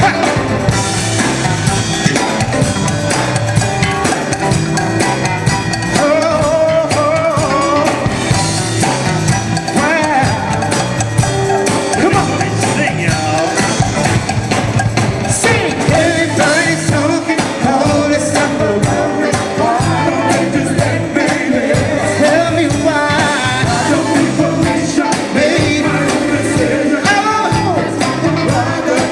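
Live band music with a steady beat and wavering melodic lines over it.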